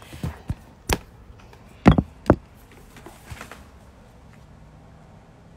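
Phone being handled close to its microphone: a handful of short knocks and taps, the loudest pair about two seconds in, then only faint room noise.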